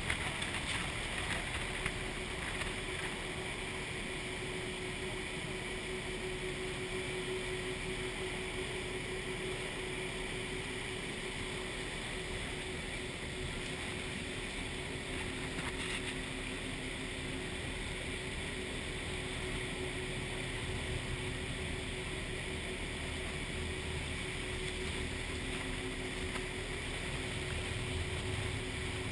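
A tour boat's engine hums steadily under a constant roar of the waterfall and wind.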